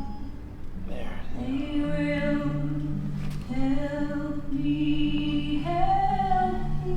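Slow vocal music: long held sung notes over a low sustained tone.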